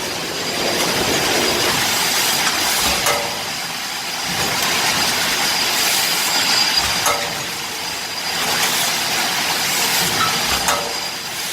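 1200-ton knuckle-joint press cold-forging bevel gears on an automatic transfer line: steady mechanical hiss and running noise, with three dull thumps about four seconds apart as the press strokes.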